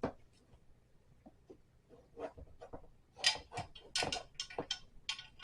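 Small clicks, ticks and light clinks of furniture-assembly hardware and tools being handled and turned. They are sparse and faint at first, then a quicker run of sharper clicks starts about three seconds in.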